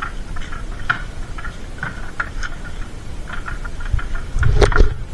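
Freshly caught fish being handled on a plastic tarp and dropped into a metal basin: irregular light taps and rustles, with a louder clatter near the end, over a low rumble.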